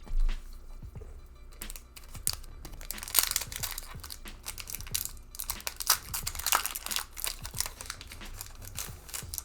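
Foil booster pack wrapper crinkling as it is handled and torn open, a dense run of crackling that starts about a second and a half in.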